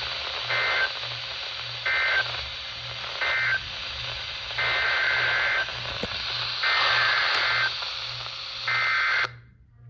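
NOAA Weather Radio heard through a receiver over heavy static with a low hum. First come three short bursts of SAME two-tone data, the end-of-message code. Then come three longer SAME header bursts announcing the next alert, the last one cut short, and the signal drops out suddenly near the end.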